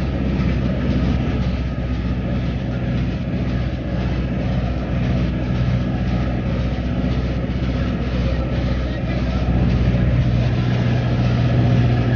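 A motor vehicle running steadily: a continuous low engine hum with road noise, swelling a little louder near the end.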